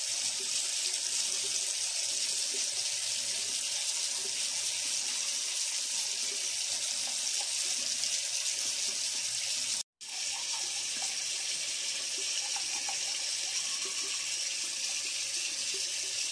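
Bathroom tap running steadily into the sink, with a brief drop-out about ten seconds in.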